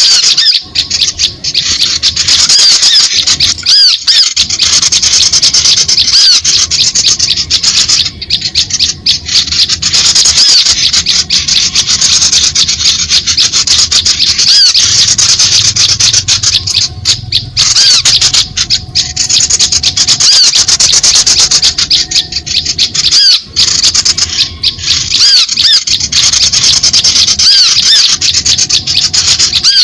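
Bird-lure recording of many small birds chirping and calling together: a dense, high-pitched chatter of short notes that rise and fall, with only brief breaks.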